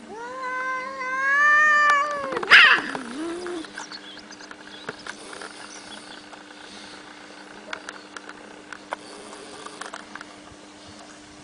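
Cats fighting: a long drawn-out caterwaul for about two seconds, slightly rising in pitch, broken off by a sudden harsh burst, the loudest sound, then a short lower call. After that it goes quieter with faint scattered clicks.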